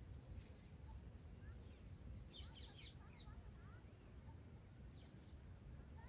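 Faint, high, short chirps of red-whiskered bulbul nestlings begging at the nest, with a quick burst of them about halfway through, over a faint low rumble.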